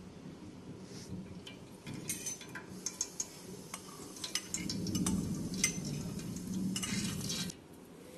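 Ghee being poured from a jar into an aluminium pot: scattered light clinks and ticks of the jar against the pot, with a dull low rumble of handling in the middle that dies away near the end.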